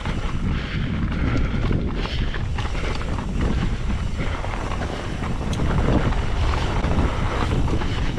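Wind buffeting the microphone over a mountain bike rolling across a rocky trail, with small clicks and rattles from the tyres and bike.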